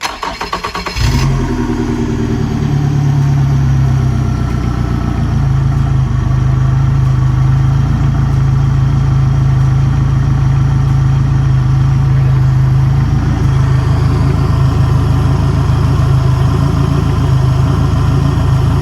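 Four-stroke fuel-injected outboard motor cranking for about a second, then catching and settling into a steady idle. It runs out of the water on flushing earmuffs fed by a garden hose.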